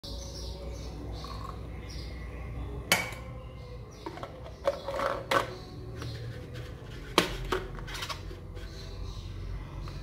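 Plastic knocks and clicks as a thermos flask's pink stopper and lid are fitted and turned by hand: a few sharp clacks, the loudest about three and seven seconds in, over a steady low hum. Faint bird chirping in the first second.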